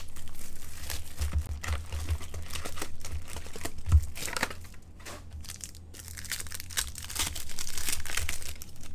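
Foil wrapper of an SPX hockey-card pack crinkling and tearing as it is opened by hand, with a single thump about four seconds in and louder crinkling near the end.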